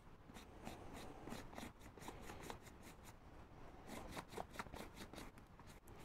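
Faint scratchy brushing of a nearly dry paintbrush's bristles across a textured EVA foam buckle, in many quick, irregular strokes.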